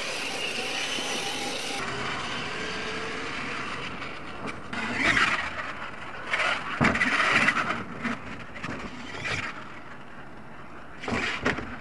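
Radio-controlled monster truck running on a dirt track, its motor and tyres throwing dirt, with several short louder bursts of throttle in the second half.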